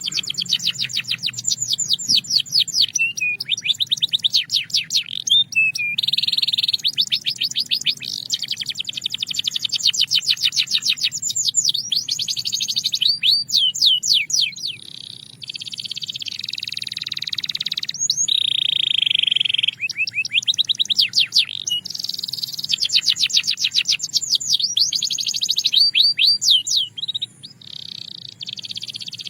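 Belgian canary singing a continuous song of fast trilled rolls, each a run of rapid repeated notes, switching from one trill to the next every second or two. A smoother held note sounds a little past the middle, and the song breaks off briefly near the end.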